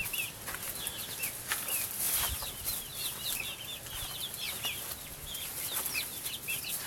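Chickens calling: many short, high peeps and cheeps overlapping, the kind young chicks make.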